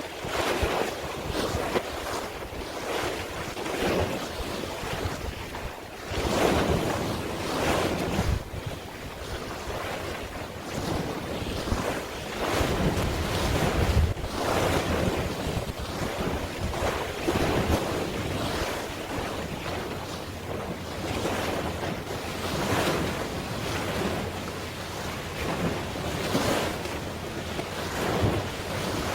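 Waves washing and wind buffeting the microphone, a steady noise that swells and fades every second or two.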